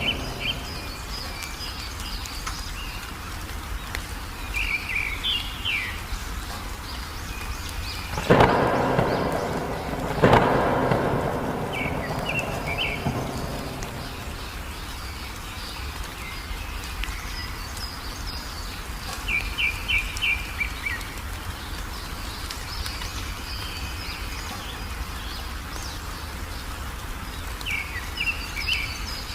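Wild birds chirping in short repeated phrases over a steady rain hiss, with two claps of thunder about eight and ten seconds in, each fading off over a few seconds.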